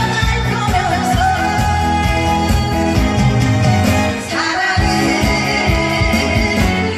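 Live song: a singer's voice over amplified accompaniment with a steady beat, bass line and drums. The music dips briefly about four seconds in.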